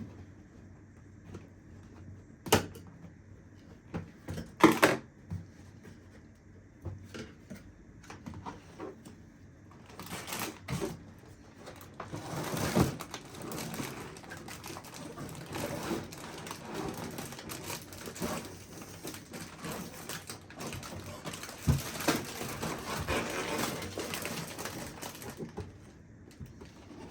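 Cardboard box and plastic bags of Lego pieces being handled: a few sharp knocks and clicks, then about fifteen seconds of continuous rustling and crinkling starting about ten seconds in.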